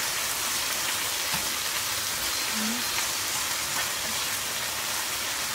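Squid rings and sliced onion sizzling steadily in hot olive oil in a frying pan, an even hiss with a few faint ticks.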